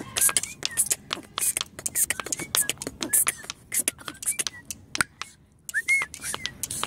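A stone knocked on a stone floor, beating out a fast rhythm of sharp clicks, with short high chirps that glide up and down in time with the beat. The beat breaks off for about half a second a little after the middle, then picks up again.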